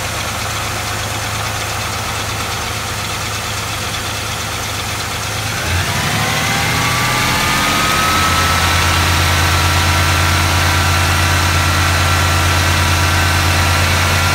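V8 engine idling steadily; about six seconds in its speed rises smoothly over a couple of seconds and then holds at a higher, steady pitch.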